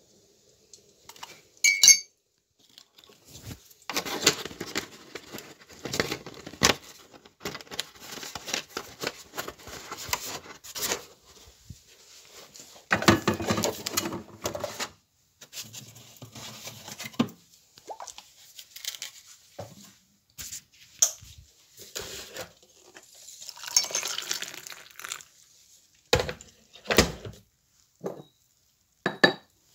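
Kitchen clatter: cutlery and crockery clinking and knocking on a worktop, irregular knocks and clicks with a few longer stretches of handling noise.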